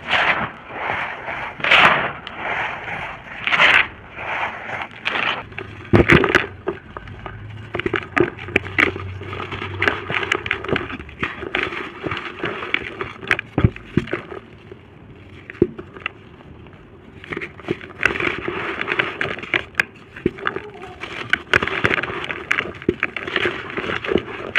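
Dry red dirt shapes crunching and crumbling as they are crushed: a dense crackle of small snaps and gritty scraping, with bigger crunches in the first six seconds and a quieter stretch about halfway through.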